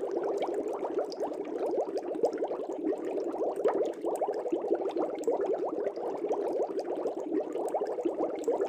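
Fish tank air bubbles bubbling steadily: a dense, unbroken stream of many quick small blips as air rises through the water.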